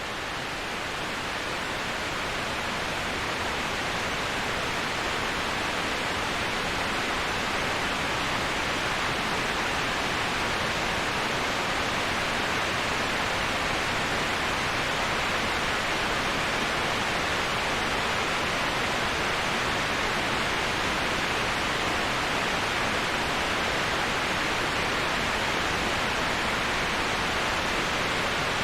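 Waterfall white noise: a continuous, even rushing of falling water with no distinct splashes. It is strongest in the upper-middle range and swells slightly over the first few seconds.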